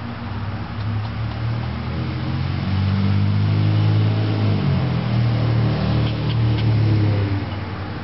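A road vehicle's engine running as it passes, growing louder about a second in, shifting pitch midway, then fading near the end.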